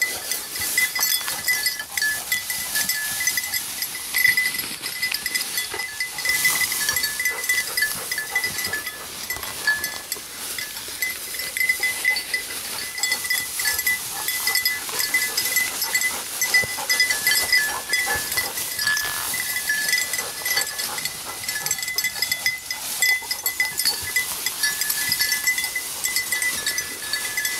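A bell on a German shorthaired pointer's collar jingling irregularly in a thin two-note ring as the dog searches through dense cover, over the crackle and rustle of dry brush being pushed through. The bell keeps ringing, a sign the dog is on the move rather than on point.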